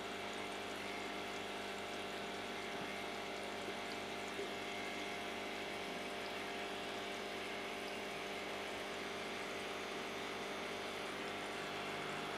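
Aquarium filter pump running steadily: a constant hum with water trickling.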